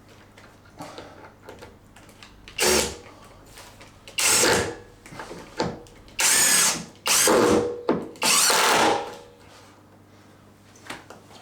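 Power drill running in five short bursts of about half a second to a second each, in the way of screws being driven, with a few light knocks between them.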